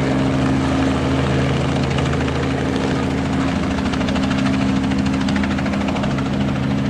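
Robinson R44 helicopter's six-cylinder Lycoming piston engine and rotor running steadily before take-off: an even engine drone with a rapid, regular beat.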